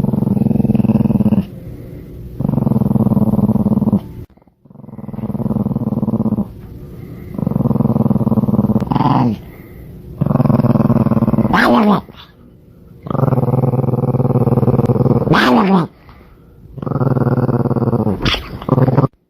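A dog growling in long, low, rhythmic growls, about seven of them, each lasting a second or two. Several end in a sharp high whine that falls in pitch. The growling stops abruptly near the end.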